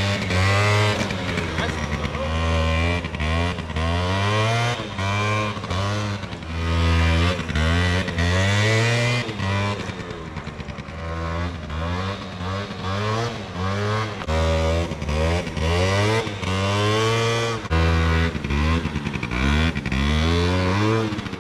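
50cc scooter engine revved up and down again and again, its pitch rising and falling with each throttle opening as the rider lifts the front wheel into wheelies.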